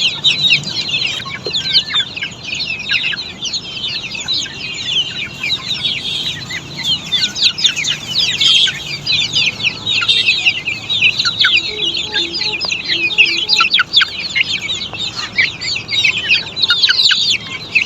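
A large group of chicks peeping all at once: a dense, continuous chorus of high, short, downward-slurred peeps.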